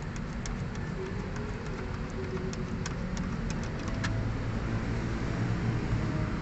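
A string of light, irregular clicks and ticks as the fuel filter's hose fittings are handled, mostly in the first four seconds, over a steady low rumble.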